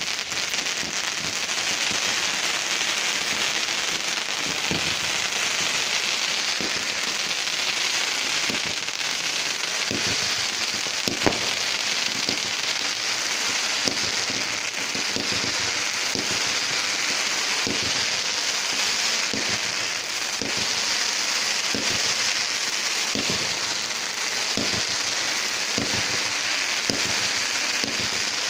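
Fireworks going off: a dense, steady crackle with irregular bangs about once a second. The loudest bang is about eleven seconds in.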